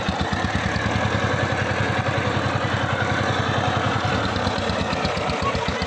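Single-cylinder diesel engine of a walking power tiller running as the machine pulls through paddy-field mud, with an even beat. The beats quicken at the start and slow again near the end.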